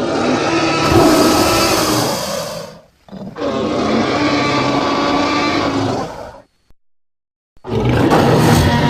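Two long creature roars from a sound-effects library, one after the other, then a short silence and the start of another loud roar near the end.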